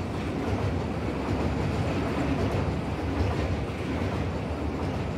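A train running on rails, a steady rumble used as a sound effect for a train journey.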